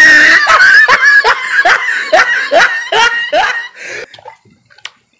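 Loud laughter: a string of short, rhythmic laughs, about two or three a second, dying away about four seconds in.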